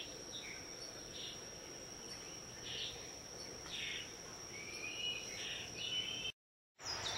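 Outdoor summer ambience: insects calling in one steady high tone, with scattered short bird chirps and a couple of sliding whistled notes near the end. The sound cuts out completely for about half a second, about six seconds in.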